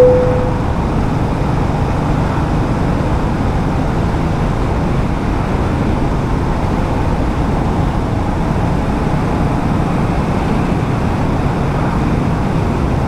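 Motorcycle engine running steadily at cruising speed, heard from the rider's seat with road and wind noise. A short, loud tone sounds right at the start and fades within about half a second.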